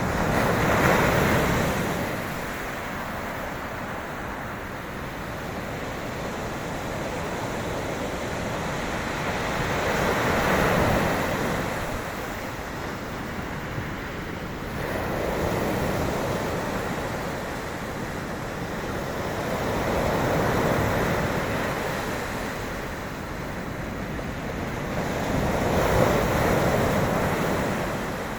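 Sea waves breaking and washing on the shore in five slow surges, each rising and falling over a few seconds.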